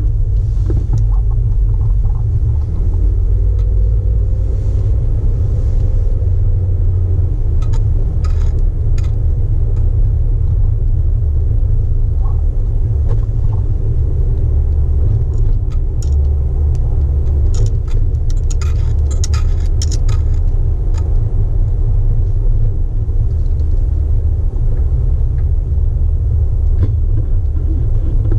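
Jeep Wrangler JK driving, a steady low rumble of engine and road, with a few light clicks and rattles around the middle.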